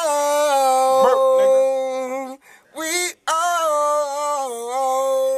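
A man singing two long held notes without words, the first about two seconds long, then after a brief break a second that steps slightly lower in pitch.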